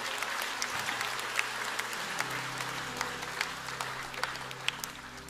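Audience applauding, with many individual claps, dying away near the end.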